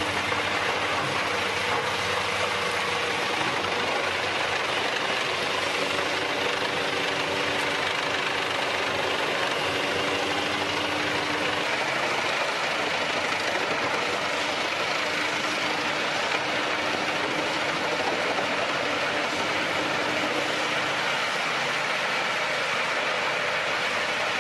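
Industrial wood chipper running with a steady, even mechanical din and a faint hum underneath, with no separate knocks or breaks.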